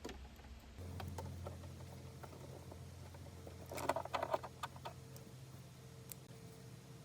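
Plastic door-harness electrical connectors being handled and unplugged: scattered light clicks, and a quick cluster of sharper clicks and rattles about four seconds in, over a steady low hum.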